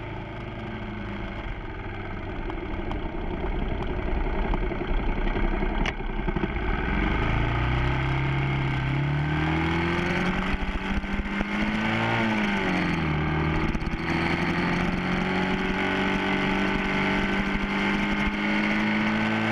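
Yamaha FZ6's inline-four engine under way, with wind rushing over the helmet-mounted microphone. The engine note climbs steadily from about a third of the way in, dips about twelve seconds in, then holds a steady pitch.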